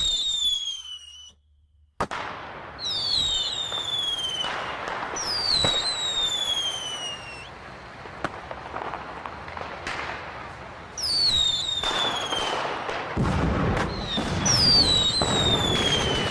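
Fireworks going off: five whistles that fall in pitch, each lasting a second or two, with sharp bangs scattered between them over steady crackling.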